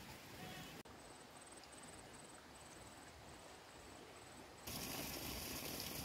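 Faint rice-field ambience: a high insect chirp in short, evenly spaced pulses, about three a second, then a louder steady hiss takes over near the end.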